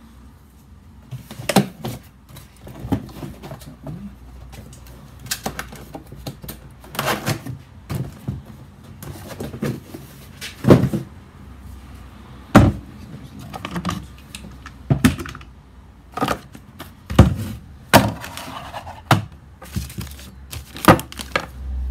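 Pole pruner parts being lifted out of a cardboard box and set down on a wooden workbench: cardboard rustling and scraping with a string of irregular knocks and thuds, the sharpest coming in the second half.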